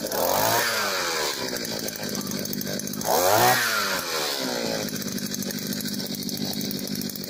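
Oshima 2P earth auger's 49.9 cc single-cylinder two-stroke engine idling, revved up and back down twice: briefly about half a second in, and harder about three seconds in.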